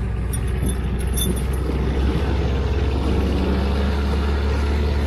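Outboard motor running steadily as the inflatable boat moves under way, a continuous low drone, with water washing past the hull.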